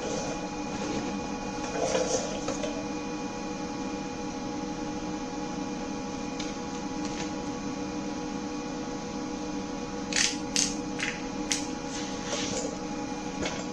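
Steady electrical hum of shop equipment, carrying several steady tones, broken by a handful of short sharp clicks and clinks about ten to twelve seconds in.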